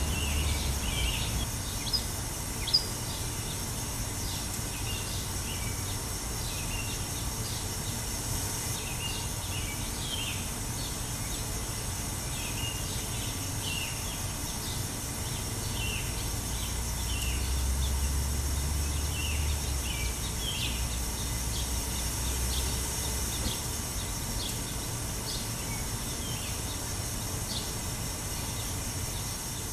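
Outdoor ambience: small birds chirping here and there over a steady hiss and low rumble, the rumble swelling a little past the halfway point. Two sharp clicks about two to three seconds in.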